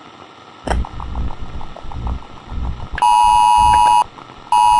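Radio emergency-alert tone: two long harsh electronic beeps of about a second each, half a second apart, heralding a broadcast. Before them, low muffled thumps start after a click, the footsteps heard from the floor above.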